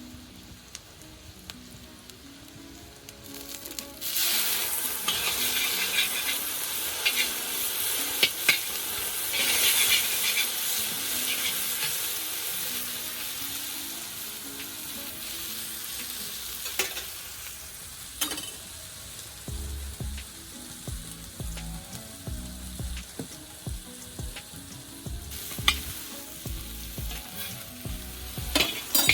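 Food frying in hot oil in a pan. It sizzles quietly at first, then about four seconds in a loud sizzle starts suddenly as something goes into the oil and slowly settles, with the scrape and clicks of a spoon stirring in the pan.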